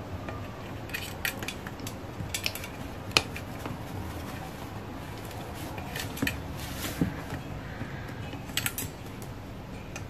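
Hyacinth macaw's beak and feet tapping and clinking on a stainless steel thermal coffee carafe and its lid: scattered sharp clicks, the sharpest about three seconds in.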